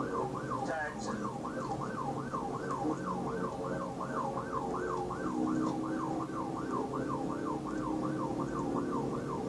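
Police car siren on a fast yelp, its pitch sweeping up and down about three times a second, over steady road and engine noise from the pursuing patrol car at highway speed.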